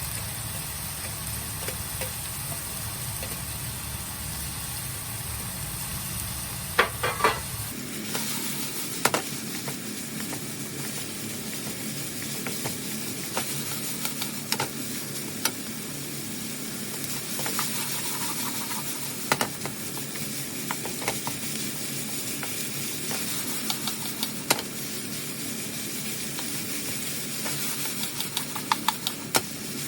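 Mapo tofu ingredients sizzling in a frying pan while being stirred, with scattered clicks of the utensil against the pan. A low hum underneath stops suddenly about a quarter of the way in.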